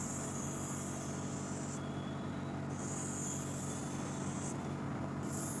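Marker tip rubbing across a board as circles are drawn: two strokes of about two seconds each, and a third beginning near the end, over a steady low hum.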